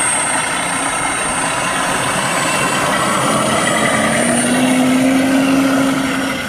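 Radio-controlled T-28 Trojan model plane's motor and propeller running up on its takeoff roll. The pitch rises about four seconds in, and the sound falls away near the end as the plane pulls away.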